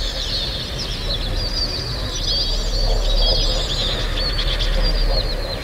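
Many small birds chirping and twittering in a dense, overlapping chorus, over a steady low rumble.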